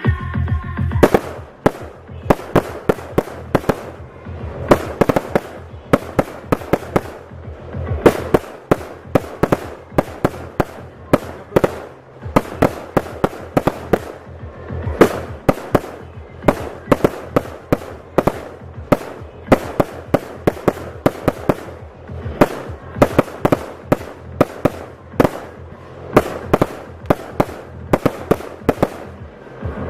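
Consumer fireworks going off in rapid, uneven volleys of sharp bangs and pops, several a second throughout, with electronic dance music playing underneath.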